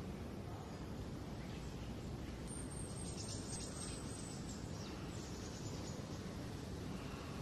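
Steady outdoor background noise with faint birds chirping. A high, thin bird call runs for about two seconds near the middle.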